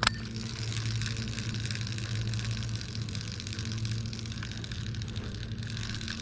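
A steady low hum with an even hiss over it, and one sharp click right at the start.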